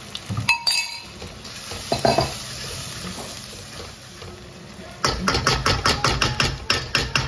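Chili paste sizzling in oil in a wok while it is stirred, with a few sharp clicks of utensils on the pan. About five seconds in comes a quick run of about a dozen utensil knocks against the wok, about five a second.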